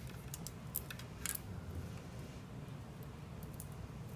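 A few faint, sharp clicks from small wires and plastic connectors being handled, over a low steady hum.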